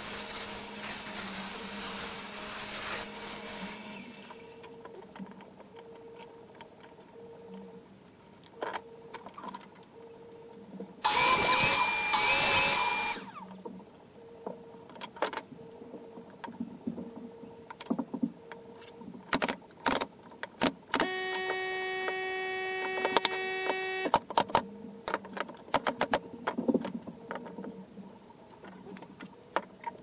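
Workbench sounds: clicks and knocks of tools and wood pieces being handled and set down. A rasping, rubbing sound of wood being worked fades out a few seconds in. There are two short runs of a small motor: a loud whirring burst with a wavering squeal about eleven seconds in, and a steady hum for about three seconds past the twenty-second mark.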